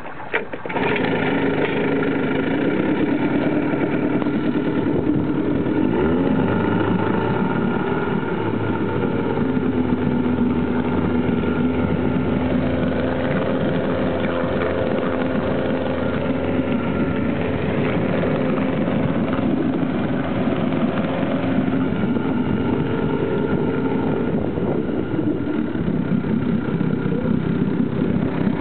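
1952 Scott-Atwater two-stroke outboard motor running steadily. It gets sharply louder about a second in, its speed shifts up and down briefly around six to nine seconds in, and it changes again near the end.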